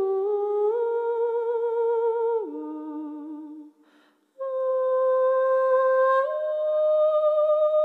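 Background music: a slow, wordless melody of long held notes that waver in pitch and step from note to note. It steps down and fades to a brief silence a little under four seconds in, then comes back in and rises a step near the end.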